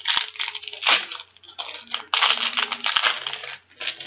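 Trading-card pack wrapper and cards being handled: repeated crinkling and rustling bursts, with a few light clicks.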